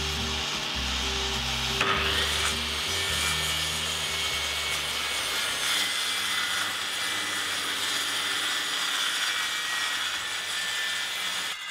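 Circular saw cutting through a sheet of plywood, a steady high-pitched cutting noise that stops abruptly right at the end.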